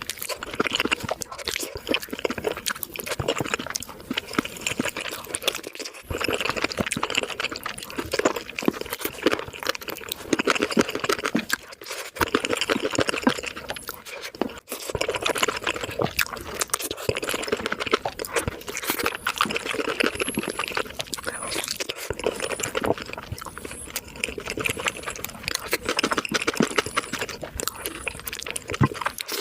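Close-miked eating of sauce-coated crispy fried chicken, sped up to three times normal speed: rapid wet chewing, smacking and crunching.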